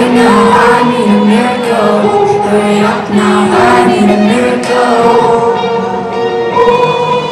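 Loud live EDM concert music from the PA: a breakdown of held, choir-like vocal chords with no beat.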